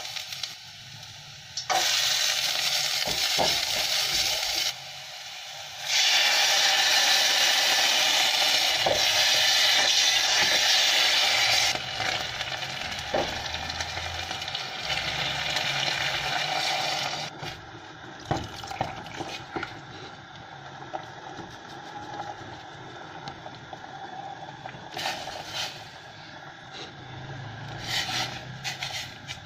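Chopped garlic and paste sizzling in hot oil in a stainless steel pot, stirred with a silicone spoon; the sizzle is loudest in the first twelve seconds or so. After about seventeen seconds it dies down to a quieter pot with occasional light knocks of the spoon against the metal.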